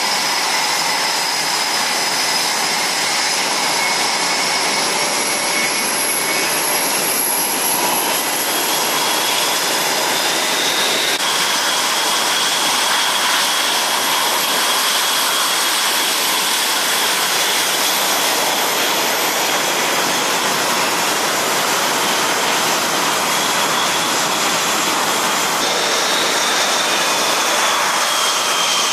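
Boeing F/A-18 Super Hornet jet engines running as the jets taxi past: a steady, loud rush with high-pitched turbine whines that shift in pitch a couple of times.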